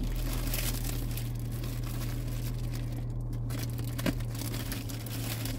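Plastic packaging crinkling as it is handled at close range, with a single sharp click about four seconds in, over a steady low hum.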